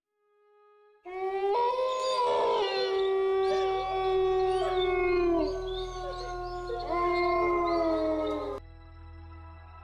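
Several canines howling together in overlapping long calls that glide up and down, starting about a second in and breaking off near the end, leaving a quieter steady music tone underneath.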